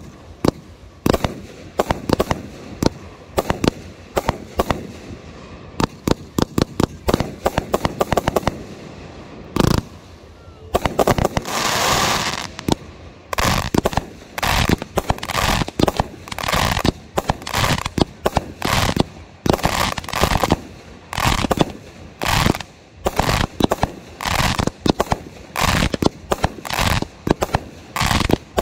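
Fireworks going off: a rapid run of sharp bangs, a dense hissing stretch about eleven seconds in, then aerial shells launching and bursting in a steady string a little more than once a second.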